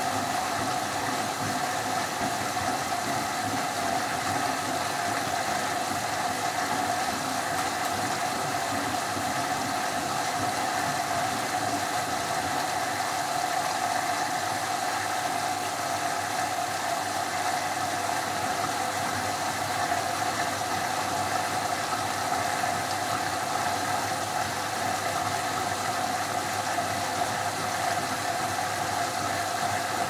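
Siemens Siwamat 285 front-loading washing machine tumbling sudsy laundry in its drum, the motor running with a steady hum and the water and foam sloshing.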